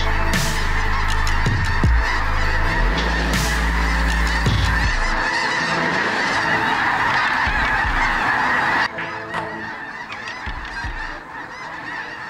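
A huge flock of snow geese calling overhead: a dense, unbroken din of overlapping honks and yelps from thousands of birds. The din drops abruptly in level about nine seconds in, then carries on.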